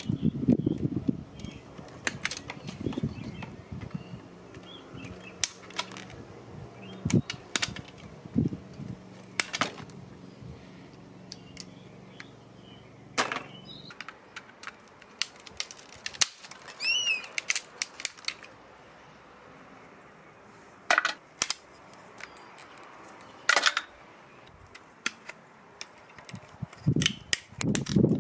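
Pliers and a screwdriver prying apart a CRT television's copper-wound deflection yoke. Irregular sharp clicks and snaps come from the plastic and metal parts as they are levered and pulled apart.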